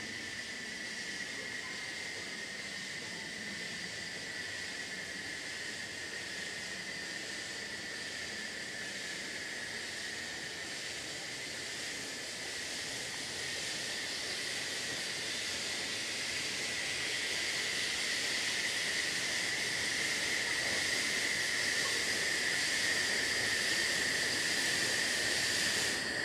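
Saxon IV K narrow-gauge steam locomotive hissing steam as it creeps slowly forward, a steady high hiss without distinct chuffs that grows louder as it draws near.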